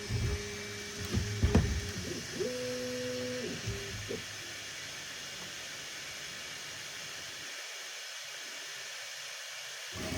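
Bambu Lab A1 3D printer's stepper motors humming through moves, each tone rising in pitch, holding and falling again, with one sharp click about a second and a half in. After about four seconds only a steady hiss is left.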